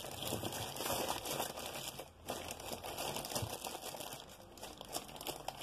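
Plastic packaging crinkling and rustling as a mailer parcel and the plastic-wrapped rolled canvases inside it are handled, with a short lull about two seconds in.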